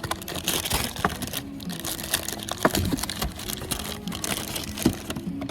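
Irregular clicking, clinking and rustling of clutch parts and tools being handled, with two louder knocks, one about two and a half seconds in and one near the end.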